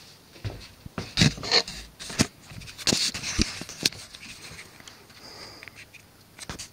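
Handling noise from the camera being picked up and swung round: a run of irregular knocks, clicks and rubbing scrapes, thickest in the first four seconds, then dying down to a few faint rubs.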